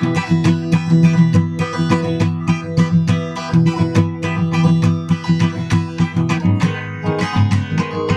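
Guitar strumming chords in a steady, even rhythm: an instrumental passage of a song, with no singing.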